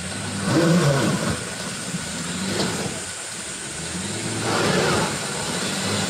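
Pickup truck engine running as the truck drives down a muddy bank into a shallow river. The engine swells twice, about half a second in and again near the end.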